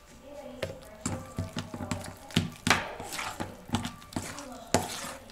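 Metal spoon stirring a thick cheese and yogurt filling in a stainless steel bowl, with irregular clicks and scrapes of the spoon against the bowl.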